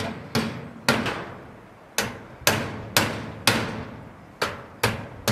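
Hammer blows on a sheet-metal roof: about nine sharp metallic strikes, roughly two a second with a pause of about a second after the first three, each followed by a brief ring from the metal.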